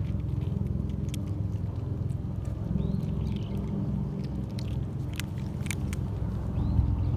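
Cats crunching dry kibble, with a few sharp crunches scattered through, over a steady low rumble.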